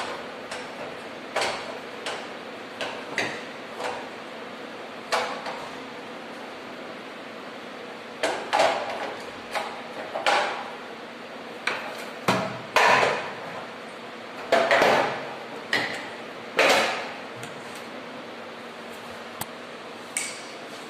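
Irregular sharp knocks and clanks, each with a short ring, coming in uneven bunches and loudest in the middle, over a steady low hum.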